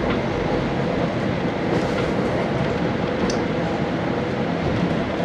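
Steady cabin noise of a KiHa 40 diesel railcar heard from inside the passenger car: the diesel engine and running gear give an even rumble, with a few faint ticks.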